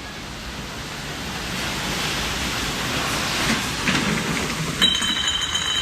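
Typhoon rain and wind, a steady hiss that swells from about a second in. A high steady two-note tone comes in near the end.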